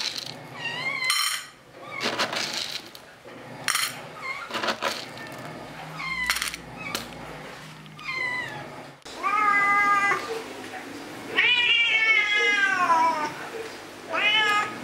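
Domestic cat meowing for food three times: a short meow, then a long meow that falls in pitch, then a rising one near the end. Before that, the clatter of dry kibble being scooped into a stainless steel bowl.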